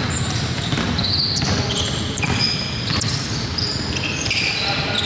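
Basketball game play on an indoor court: a ball bouncing and several short, high sneaker squeaks, over a steady background of the hall.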